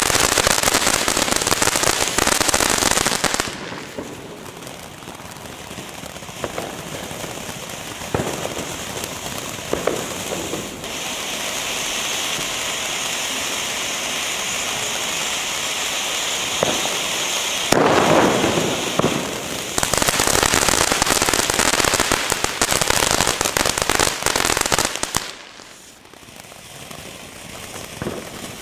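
Weco Gunpowder Barrel ground fountain spraying sparks: a continuous hiss with crackling that swells and fades. It is loud at the start, quieter through the middle, flares in a sharp burst about two-thirds in and stays loud for a few seconds, then drops away near the end.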